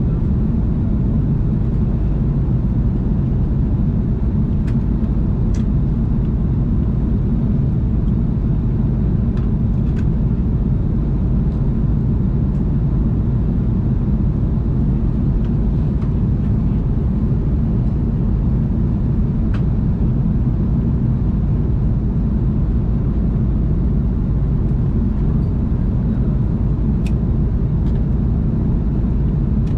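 Steady cabin noise inside an Airbus A330-300 airliner in flight: an even drone of engines and airflow, heaviest in the low range. A few faint clicks sound here and there above it.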